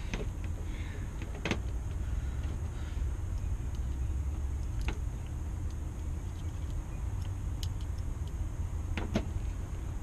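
A few sharp metallic clicks from a screwdriver and the steel case of a mortise lock body as it is handled and its cover screw driven, about one and a half, five and nine seconds in, over a steady low rumble.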